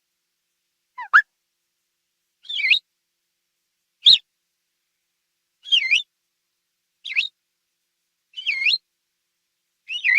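Quail giving a series of short whistled calls, seven in all, about one every second and a half. Each call swoops down and back up in pitch.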